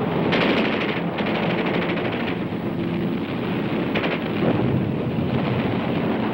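Battle sound of gunfire over a steady rumble, with a rapid rattle like machine-gun fire in the first couple of seconds and heavier blasts near the start and about four seconds in.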